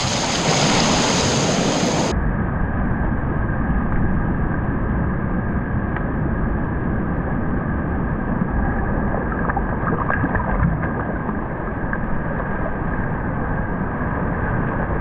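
Shallow surf washing up over sand right beside the microphone, a steady rush of water that turns duller about two seconds in.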